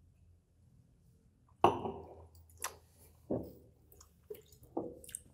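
People sipping a spirit: a handful of short, wet sips and mouth sounds, starting about a second and a half in after near silence.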